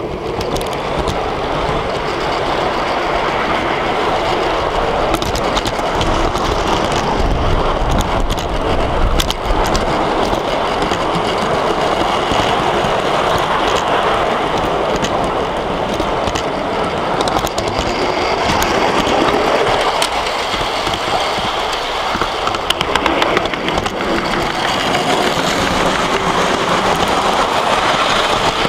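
A large-scale model of a Class 35 Hymek diesel locomotive and its rake of tank wagons running past on a miniature railway track. It makes a steady rumbling running noise, with scattered clicks from the wheels over the track, and grows louder over the first couple of seconds as it approaches.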